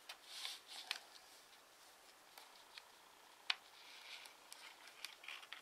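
Faint rustling and scraping of a sheet of TANT origami paper being folded and creased by hand, in short bursts near the start and again in the second half, with one sharp tick a little past halfway.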